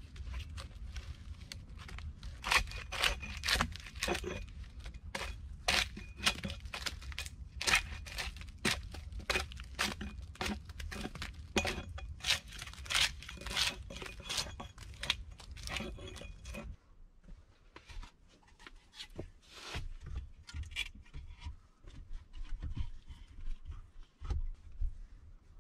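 Hatchet striking and shaving down a wooden pole in quick strokes, about two a second. After about 17 seconds it gives way to quieter scattered knocks and rustling inside a small log dugout.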